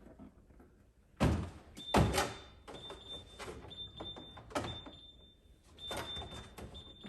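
Refrigerator door-open alarm beeping: a high beep repeating about once a second from about two seconds in, because the door has been held open too long. Over it, knocks and clunks of items being set on the refrigerator shelves, the loudest two a little after one second and at two seconds.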